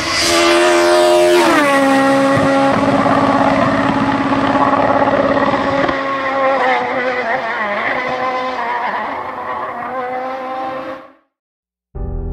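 Car engine sound effect: a high falling sweep, then an engine note that drops in pitch about a second and a half in and holds steady, fading out about eleven seconds in.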